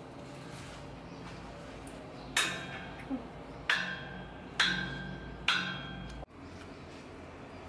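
Four sharp hard-plastic clicks, each with a brief ringing, about a second apart, from hands handling a small action camera and its plastic parts.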